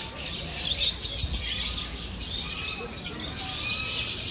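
Many birds chirping and twittering together in a dense, steady chorus. A few thin whistled notes come in during the second half.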